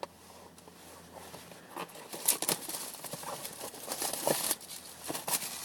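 Packaging rustling and crinkling as a box of trading cards is opened by hand: a run of crackles and small clicks that gets busier and louder about two seconds in.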